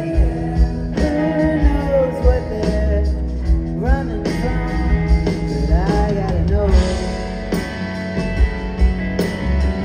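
Live rock band playing a song, heard from the audience: electric guitars, bass guitar, keyboards and drums over a steady beat, with bending notes about four and six seconds in.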